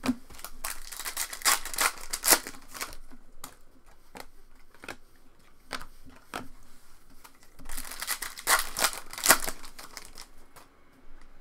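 Foil trading-card pack wrappers crinkling and 2020 Topps Allen & Ginter Chrome cards being handled, with two bursts of sharp rustling: one about half a second in and the other about eight seconds in.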